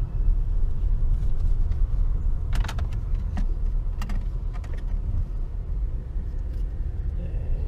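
Steady low rumble inside a moving car's cabin, with a few sharp clicks about two and a half, three and four seconds in.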